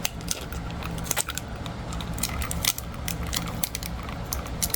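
Blue painter's tape being torn and pressed onto a plastic cat toy ball: irregular small clicks and crinkles, with a faint steady hum underneath.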